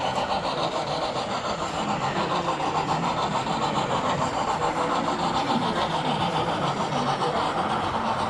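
Model train running on the layout, a steady mechanical sound with a fine rapid pulse.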